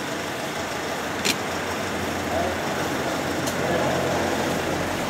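Road traffic noise with a motor vehicle's engine running steadily close by, and a short sharp click about a second in.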